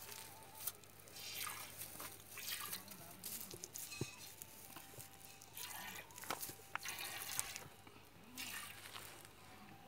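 Cow being milked by hand: faint hissing spurts of milk squirting into a steel pot already part full, roughly one or two a second.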